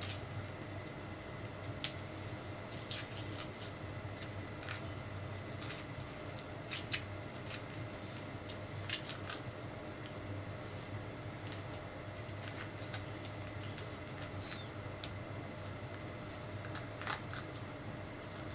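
A metal spoon scraping the flesh out of a halved orange, giving irregular small wet squelches and crackling clicks as the pulp tears from the peel, with pieces dropped into a stainless steel bowl. A faint steady hum runs underneath.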